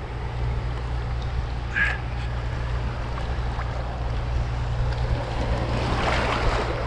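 Wind rumbling on the microphone over surf washing around the anglers' legs, with a brief high squeak about two seconds in and a rush of water noise near the end.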